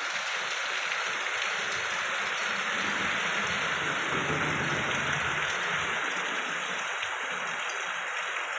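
Steady hiss of heavy rain, even and unbroken.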